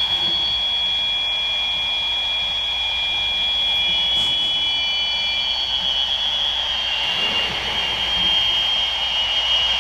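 Feedback between Fisher-Price baby monitors: several steady high-pitched whines over a hiss. The whines shift and split in pitch in the second half as the monitors move against one another.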